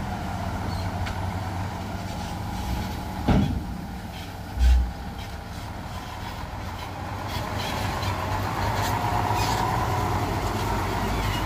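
Diesel engine of a heavy Nissan Diesel dump truck running at low speed, growing louder in the second half as the truck comes closer, with excavator engines behind it. There is a sharp knock about three seconds in and a deep heavy thud a moment later. A steady whine builds in the second half.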